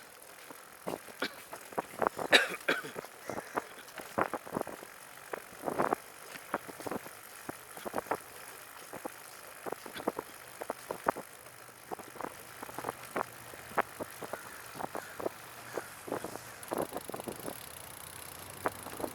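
Recumbent trike riding along with a recurring sharp ticking, about one to three clicks a second and uneven, over steady rolling noise. It is a tick from the rear wheel that a cable adjustment has not cured; the riders suspect a fender bolt lightly touching the tire or a loose spoke, or the wheel bearings.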